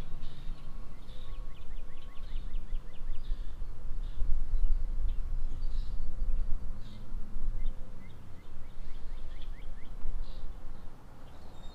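Outdoor river ambience: a low, uneven rumble with a faint trill of rapid high ticks heard twice.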